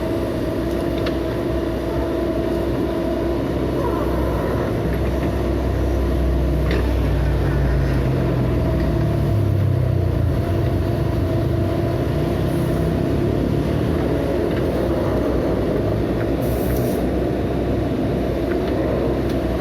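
Heavy earthmoving machine's diesel engine running under load, with a steady whine over it. The engine revs up about six seconds in, then eases back after about ten seconds.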